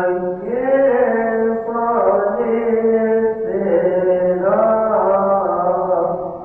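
A male voice chanting a Coptic liturgical hymn in long, drawn-out melismatic notes, the pitch stepping between held tones about once a second.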